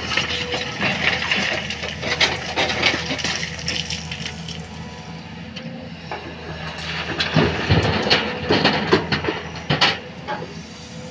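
Excavator bucket tipping loads of broken rock and murrum into a steel tipper truck body: rocks clattering and thudding into the bed, in two spells, one in the first few seconds and another from about seven to ten seconds in. Heavy diesel machinery runs steadily underneath.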